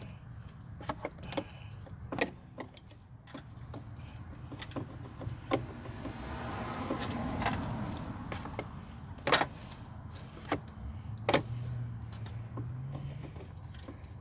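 Scattered clicks, knocks and light metallic clinks of hand tools and plastic hose fittings being worked on in a car's engine bay, over a steady low hum.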